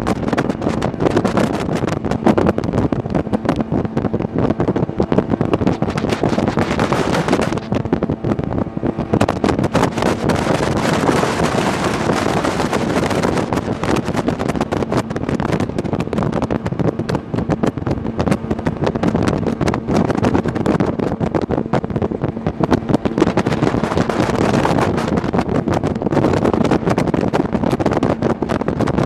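Sea-Doo Speedster jet boat running under way, its engine a steady drone beneath heavy wind buffeting on the microphone. The rush of water and wind dips briefly about eight seconds in.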